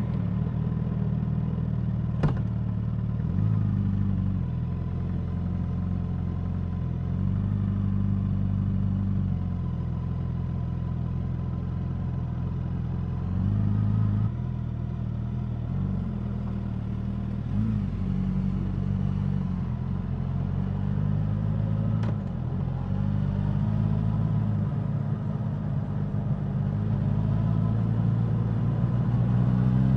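Suzuki GSX-S1000's inline-four engine running at low, fairly steady revs, its exhaust note shifting slightly now and then.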